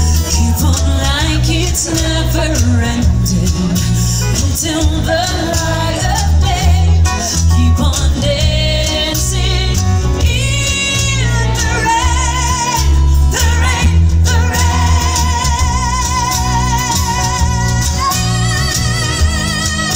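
Live pop-rock band playing loudly through a PA, with drums, bass and keyboards under a woman's lead vocal sung with a wide vibrato.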